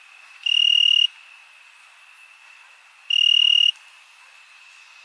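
Night cricket chorus: a steady high drone, with a louder, close cricket trilling twice in short, rapidly pulsed bursts of just over half a second each, about two and a half seconds apart.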